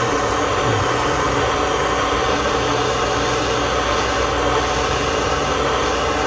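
Jeweller's gas torch flame burning with a steady, even rushing noise.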